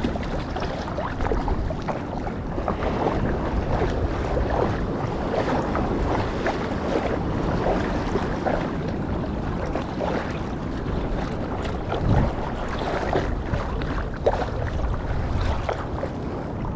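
Small sea waves lapping and splashing against a float tube right at the microphone, a steady slosh with many little splashes. Wind buffets the microphone.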